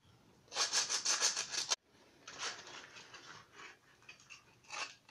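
A stiff pad or brush scrubbed back and forth over the rough surface of a cast-cement figure, brushing off sanding dust before painting. A quick run of strokes about half a second in, then lighter, spaced strokes, and a few stronger ones near the end.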